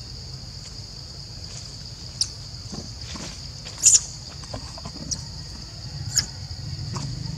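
A baby macaque eating a piece of fruit among dry leaves: a few short, sharp crackles and clicks, the loudest about four seconds in, over a steady high-pitched drone and a low rumble.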